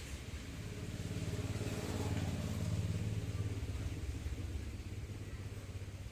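A motor engine running, growing louder toward the middle and then fading, as if something is passing by.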